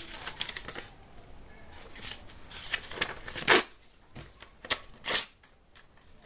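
Paper rustling and scratching in short crisp bursts as a piece of paper is rubbed in the ear to tickle it. The two loudest bursts come about three and a half and five seconds in.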